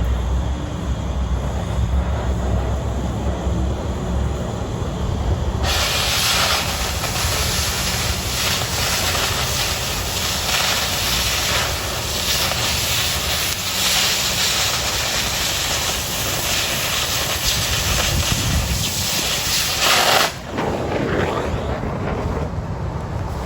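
Oxy-fuel cutting torch on 1/4 inch steel plate: the preheat flame runs with a low rumble, then about five seconds in the cutting-oxygen jet opens with a loud, steady hiss as the torch cuts through the steel. The hiss cuts off suddenly about three seconds before the end, leaving only the preheat flame.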